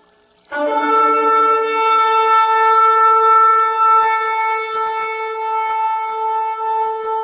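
Shofar (ram's horn) blown in one long note that begins about half a second in with a brief lower start, then settles and holds a steady pitch.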